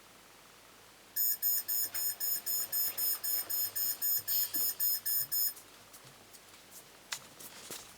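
Raspberry Pi smart alarm clock sounding its electronic alarm: fast, high-pitched beeps, about four a second, for about four seconds, then stopping suddenly. A few light clicks follow.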